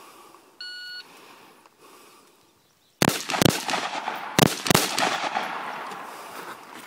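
Electronic shot timer giving its start beep, one short steady tone under a second in. About two seconds later a rifle fires four shots in two quick pairs, each crack followed by a long echo.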